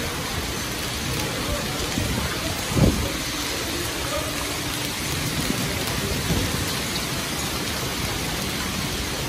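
Heavy rain pouring down in a strong wind storm, a dense steady hiss with gusts buffeting the microphone. A brief low thump comes about three seconds in.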